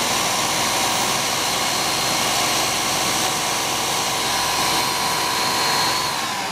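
Countertop blender motor running steadily at full speed, puréeing cooked leeks and potatoes with butter for soup. Near the end its whine starts to drop in pitch as the motor winds down.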